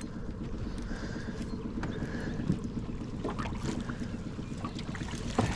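Steady low rumble of a fishing boat on the water, with wind on the microphone, and a few light knocks and clicks about halfway through as a bass is netted.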